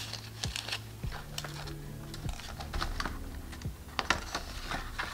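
Paper banknotes being handled, flicked and slid into a clear plastic binder pocket: a run of light, crisp clicks and rustles at irregular intervals, over faint steady background music.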